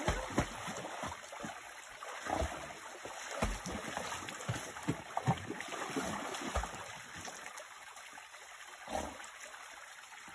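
A dog swimming and paddling in a shallow creek: irregular splashes and sloshing water over the creek's steady running. The splashing thins out about two-thirds of the way through, with one more splash near the end.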